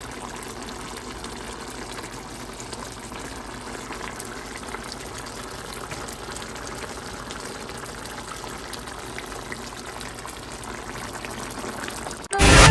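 Chicken afritada stew simmering in a pot, a steady bubbling with many small pops. Loud music cuts in suddenly near the end.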